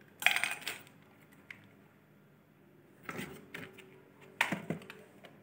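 Cardboard and paper packaging being handled: three short bouts of rustling and light knocks as accessories are taken out of the box and put down on a tiled floor, the first the loudest.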